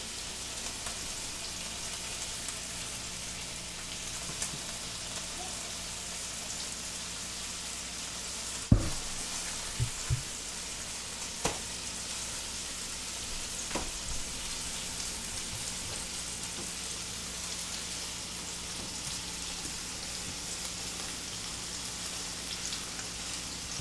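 Beef burger patties sizzling steadily in a frying pan, with a few light knocks and clicks; the loudest is about nine seconds in.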